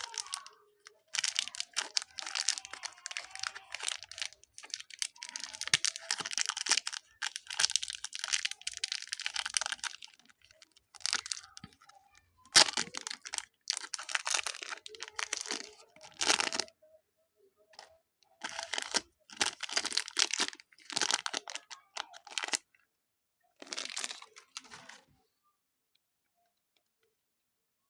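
Hands kneading and stretching slime mixed with super light clay, making crackling, crinkling sounds in bursts a few seconds long with short pauses between. Silent for the last few seconds.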